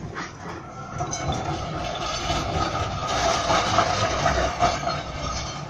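B2-class articulated tram rolling past, its wheels rumbling and clattering over the rails with a steady high-pitched squeal that builds from about a second in, is loudest in the second half and eases off near the end.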